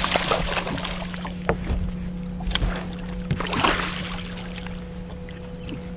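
A hooked bass splashing at the surface beside the boat as it is reeled in and grabbed. There is a burst of splashing at the start and another about three and a half seconds in, over a steady low hum.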